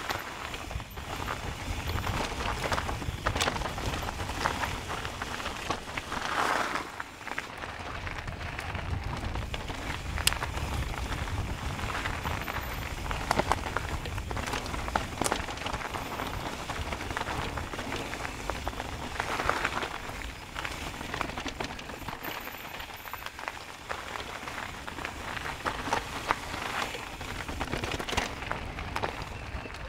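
Mountain bike riding down a dirt trail: tyres rolling and crunching over the ground, with frequent sharp clicks and rattles from the bike and a steady low wind rumble on the microphone.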